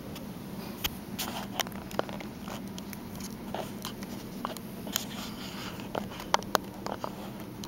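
A young kitten moving about right beside the microphone, with irregular small clicks and taps over a steady low hum.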